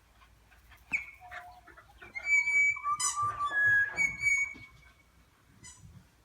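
Songbird singing: a short sharp call about a second in, then a phrase of clear, held whistled notes at several different pitches, with softer chirps around it.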